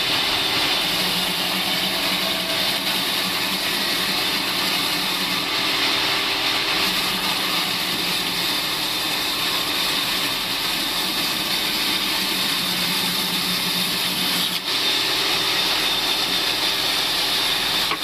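Table band sawmill running and ripping lengthwise through a long hardwood log slab. It is a steady rasping hiss with a constant high whine over a low hum.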